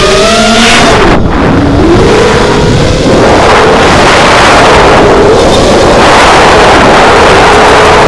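FPV drone's electric motors and propellers whining, the pitch rising and falling with throttle changes, over loud wind and propeller-wash noise on the onboard camera's microphone.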